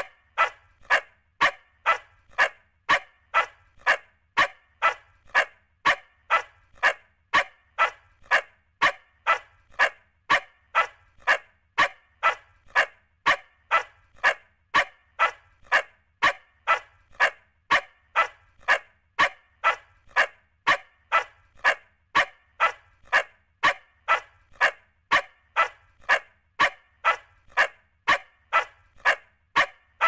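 Puppy barking: short, sharp, high yaps, about two a second, evenly spaced and repeating without a break.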